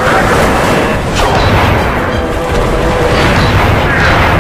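Fight-scene soundtrack from a Japanese giant-hero (tokusatsu) TV show: a loud, continuous wash of battle sound effects, heaviest in the low end.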